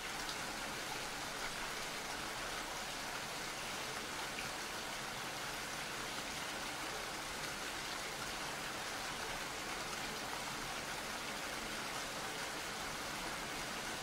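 Steady rain falling: an even hiss with no change in level.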